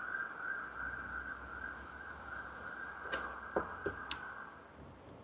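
Faint steady hum of honeybees at an open hive, with a few light clicks and knocks about three to four seconds in as the comb frames are handled.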